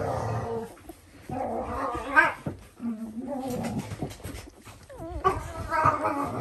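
Dalmatians whimpering and whining: several short pitched cries that rise and fall, one climbing high about two seconds in and a lower held whine a second later.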